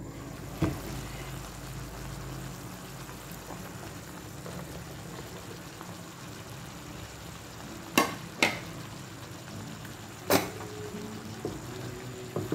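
Vegetables frying in a pan, a steady sizzle. Sharp utensil knocks against the pan come twice in quick succession about eight seconds in, and once more two seconds later.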